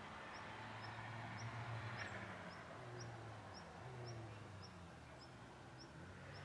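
Distant race car engine rising and falling in revs as the car works through a slalom of cones. A small bird's short, high chirp repeats evenly about twice a second over it.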